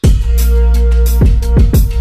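Electronic background music with heavy bass and a drum beat, starting abruptly.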